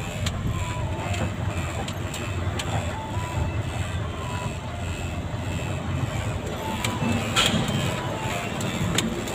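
Fuso tractor head's 10DC11 diesel engine running steadily at low speed under light load in second gear low range, heard from inside the cab.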